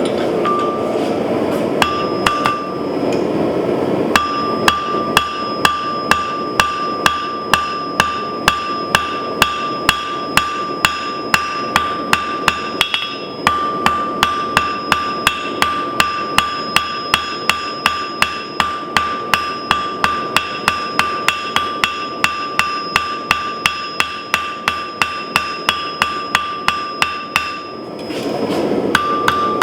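Hammer blows on hot steel over an anvil, a steady run of about three strikes a second, the anvil ringing on between blows. A steady rushing noise sits under the first few seconds, before the hammering starts.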